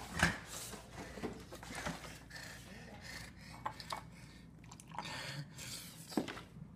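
Rubbing and handling noises with scattered small knocks, the sharpest just after the start, as milk is poured from a plastic jug into a glass; a soft hiss of pouring about five seconds in.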